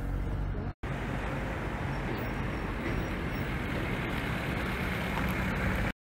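Street traffic: cars and a van driving along a town road, a steady road noise after a brief cut-out under a second in.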